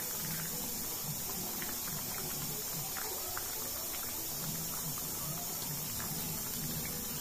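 A large aluminium pot of bagara rice boiling hard in its water, bubbling with many small scattered pops over a steady hiss, as the rice cooks through.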